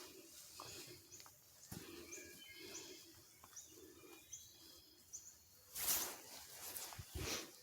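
Faint dogs barking over and over, a beagle among them, with birds chirping high above. A loud rustling noise cuts in about six seconds in, and again briefly near the end.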